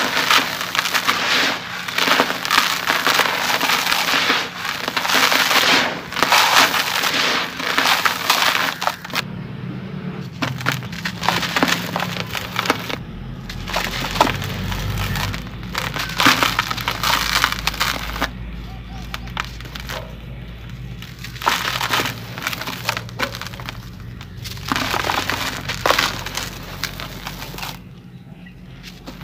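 Dry sand-cement clumps crushed and crumbled between bare hands in a tub, a gritty crunching and crackling with grit pouring down. The crunching is dense for about the first nine seconds, then comes in sparser separate crunches.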